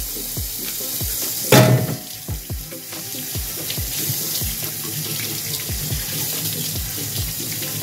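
Kitchen tap running onto a plucked quail and into a stainless steel sink as the bird is rinsed. About one and a half seconds in, kitchen shears clatter into the sink.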